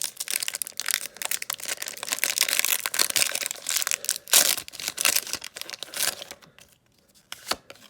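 Foil wrapper of a Pokémon trading-card booster pack crinkling and tearing as it is ripped open, a dense crackle that dies down about six seconds in, leaving a couple of soft clicks.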